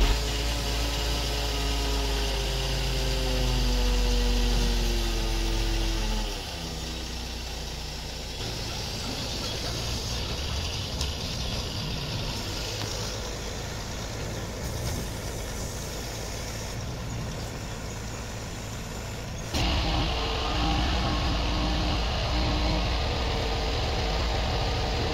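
Crane truck's engine running at raised revs while the truck-mounted crane lifts a root-balled tree; the engine note falls and quietens about six seconds in, then jumps back up near the end.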